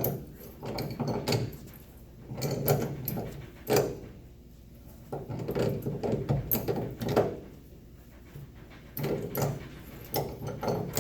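Pipe wrench working a rust-seized piece, split with three saw cuts, off an old shock absorber: about four spells of metal scraping, creaking and clanking with short pauses between them.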